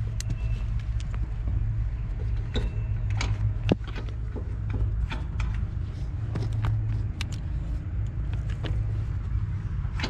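A steady low machine hum that swells and fades, with scattered sharp clicks and taps from tools and fittings being handled.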